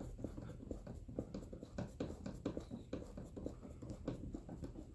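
Screw being tightened into a massage chair's arm piece: a quick, irregular run of small clicks and scrapes from the tool turning.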